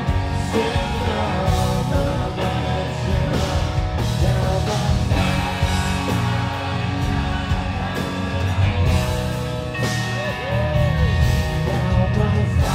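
Rock band playing live, with a man singing the lead over a strummed acoustic guitar and the band.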